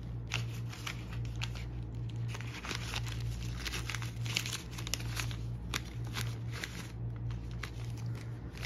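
Thin clear plastic bags and packaging crinkling as they are handled, an irregular run of small crackles.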